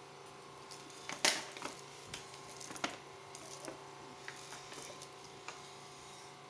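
Scattered sharp clicks and taps over a steady room hum, the loudest a little over a second in.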